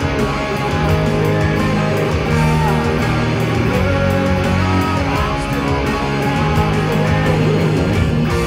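Live rock band playing: electric guitars over bass guitar and drums, loud and steady throughout.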